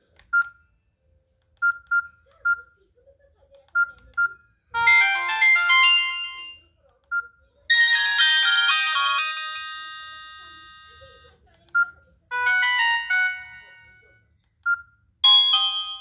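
Samsung GT-E2200 message alert tones previewed one after another as the list is scrolled: four short bright electronic chime melodies, the second ringing out and fading over a few seconds. Between them come the phone's short single-pitch keypad beeps.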